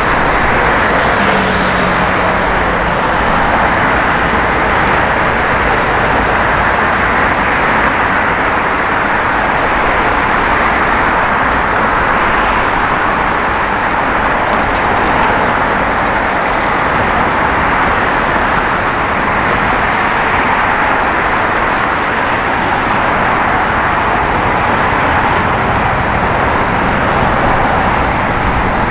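Steady road traffic noise: a continuous, unbroken hiss of tyres and engines with low rumble beneath.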